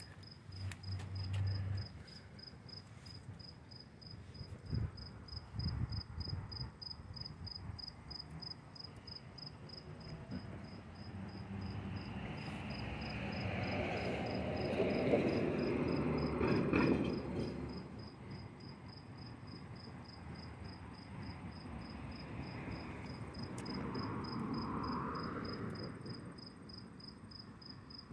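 An insect chirping in a fast, even, high-pitched pulse that never stops. A broader rushing noise swells and fades in the middle and is the loudest sound.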